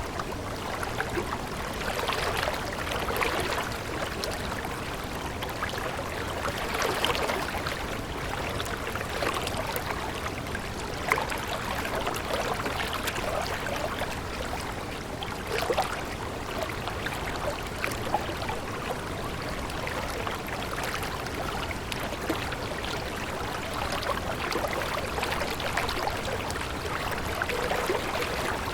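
Running water, a small stream babbling and trickling steadily.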